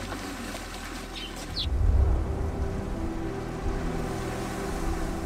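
Wind blowing, with a heavy low gust rumbling over the microphone about two seconds in. A couple of short bird chirps come just before the gust.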